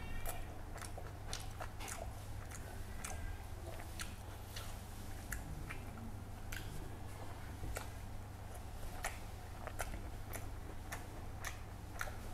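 A man chewing a mouthful of rice and curry, close to the microphone, with many irregular wet clicks from his mouth.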